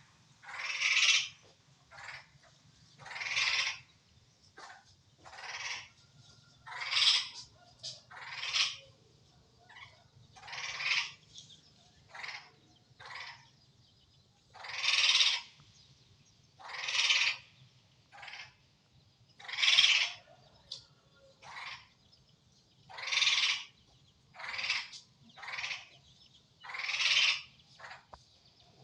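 An animal calling over and over: harsh calls of up to about a second each, repeated every one to two seconds, over a faint steady low hum.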